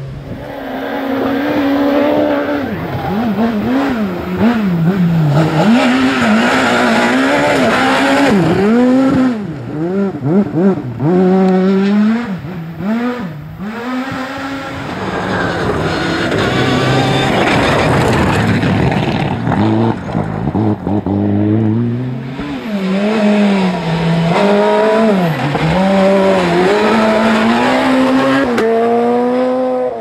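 Rally cars driven flat out on gravel stages, among them a Mitsubishi Lancer Evo IX. The engine pitch climbs and falls over and over as they shift gears and lift for corners, with brief dips as cars pass.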